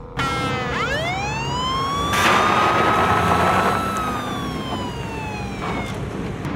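Police siren winding up from a low tone to a high wail, holding, then sliding back down, once. A loud rush of car noise comes in under it for about a second and a half as the wail peaks.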